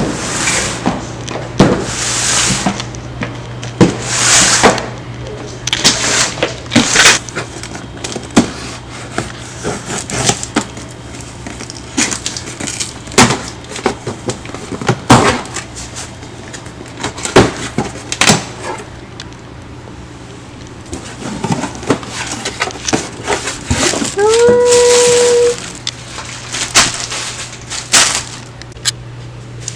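Handling noises in a small room: scattered clicks, knocks and short rustling swishes over a steady low hum, with one brief pitched squeak-like sound rising and then holding near the end.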